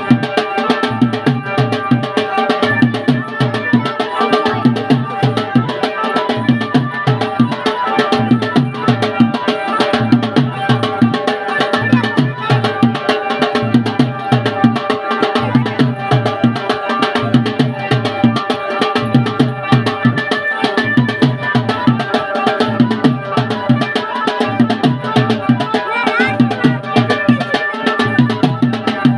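Indian wedding baaja band music: held melody notes over a steady, rhythmic drum beat.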